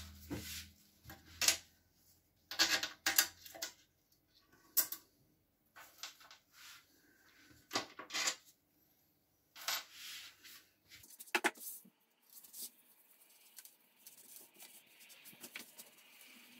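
Scattered clicks and knocks of a metal oven door and its small parts being handled on a worktop, then soft rubbing of a sponge wiping foamy cleaner over the door over the last few seconds.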